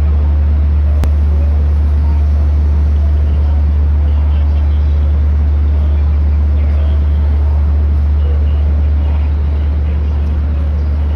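A loud, steady low drone that holds unchanged, with no rise or fall that would mark a train arriving.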